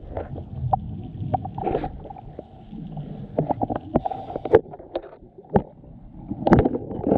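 Muffled underwater sound through a diving camera's housing: a low, steady rumble with many irregular sharp clicks and knocks.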